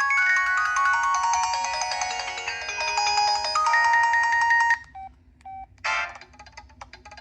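Preloaded polyphonic ringtone on a Samsung SCH-A850 flip phone: a synthesized melody of several notes at once that stops abruptly almost five seconds in. A few short beeps, a brief snatch of notes and some light clicks follow.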